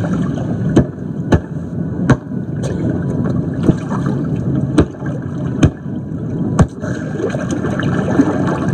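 Jacuzzi jets churning and bubbling the water, a steady rushing gurgle, with a sharp click every second or so.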